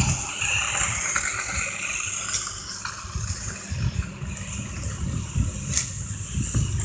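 Toy battery-powered New Bright RC race car running downhill, its small electric motor and tyres whirring, with irregular low rumbling on the microphone.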